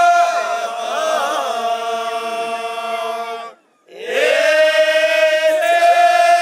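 Amazigh ahwach men's chorus chanting in unison without instruments, holding long drawn-out notes. The chant stops for a moment just past halfway and the voices come back in on a new held note.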